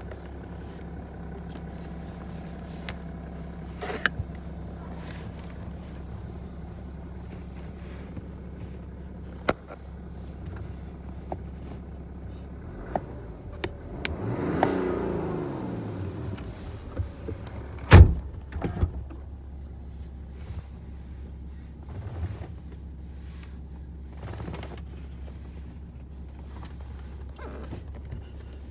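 BMW engine and road noise heard from inside the cabin: a steady low hum with scattered clicks and knocks. About halfway through the engine note swells and sweeps in pitch, and a few seconds later there is a single sharp thump.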